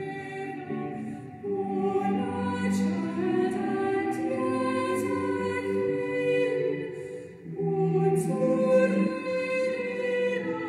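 A choir singing slow, sustained chords, with a short break between phrases about seven and a half seconds in.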